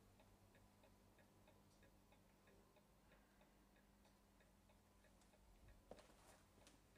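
Near silence: a clock ticking faintly and steadily over a low steady hum, with a brief soft rustle about six seconds in.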